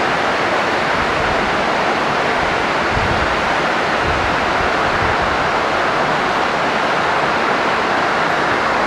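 Steady hiss of background noise, an even rushing sound with no change through the whole stretch, the same hiss that lies under the narration around it.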